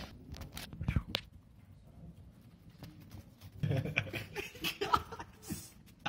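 A few sharp clicks and knocks in the first second, then soft laughter and low voices from about three and a half seconds in.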